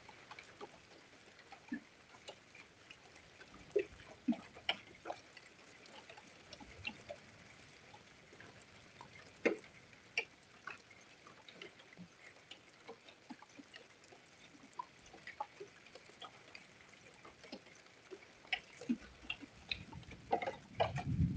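Scattered first raindrops ticking irregularly on hard surfaces, one or a few sharp ticks a second, as a storm sets in. A low rumble starts near the end.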